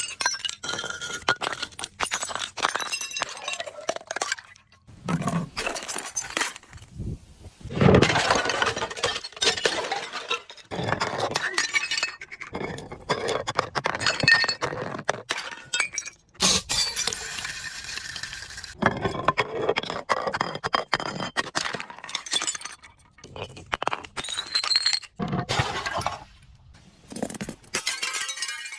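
Glass bottles being broken: repeated bursts of shattering and crunching glass, with shards clinking and ringing, separated by short pauses.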